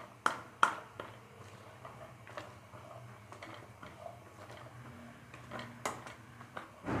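Plastic spatula clicking and scraping against a non-stick pan as diced carrots are stirred in a little oil: a few scattered sharp taps, the loudest two within the first second.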